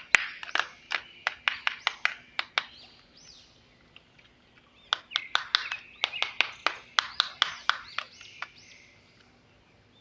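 Rapid sharp clicks, about four or five a second, in two runs with a quieter gap between them, over faint bird chirps.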